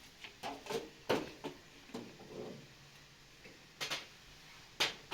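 A few irregular knocks and clicks, like objects being handled, with the sharpest about a second in and two more near the end.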